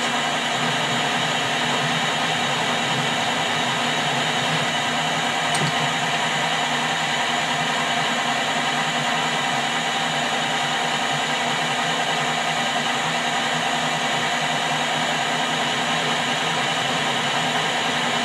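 Metal lathe running steadily while cutting a thread: an even whirring noise with a constant whine of several tones from its motor and gears.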